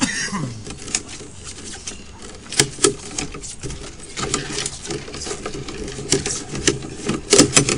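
Drain inspection camera and its push-rod being fed along a sewer pipe: irregular clicks and knocks, with a few louder knocks clustered near the middle and near the end, over a low hum.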